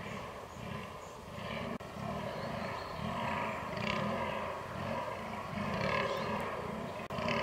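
Fallow deer buck groaning in the rut: a steady run of deep grunts, about two a second.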